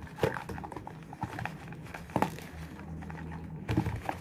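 Stiff paper gift bag being handled and opened, rustling, with a few sharp knocks and taps as the boxes inside are moved.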